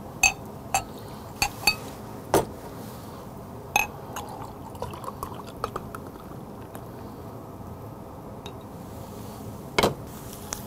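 Drinks poured into a glass: soju from a glass bottle, then beer, mixed as somaek. Several sharp glass clinks in the first few seconds, a quieter pouring gurgle in the middle, and a louder knock near the end.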